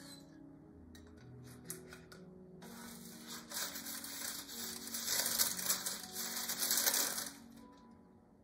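Plastic spatula scraping under crisp thin-crust pizza on parchment paper over a metal baking tray, with the parchment crinkling and crackling; a few light clicks at first, then loud dense scraping from about three to seven seconds in. Soft background music runs beneath.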